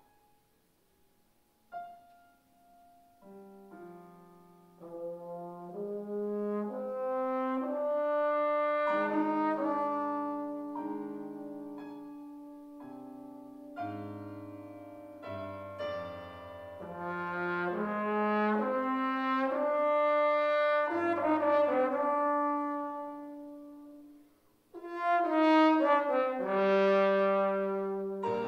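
Solo trombone playing a melody with piano accompaniment. The music begins about two seconds in, breaks off briefly near the end, and comes back louder.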